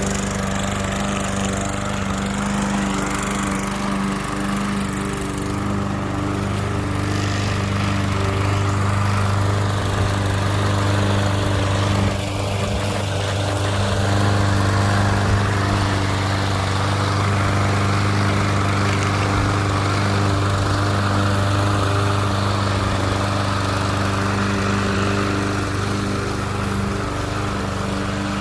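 Gasoline walk-behind Toro lawn mower running at a steady engine speed while cutting grass.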